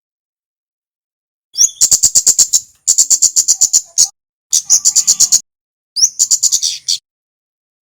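Recorded song of a male kemade: four short bursts of rapid, high, sharp chip notes, about ten a second, each burst opening with a quick rising note. The bursts start after a pause of over a second.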